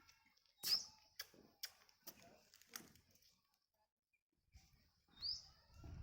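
Two short, sharp bird chirps, one under a second in and one about four and a half seconds later, with a few faint clicks between them.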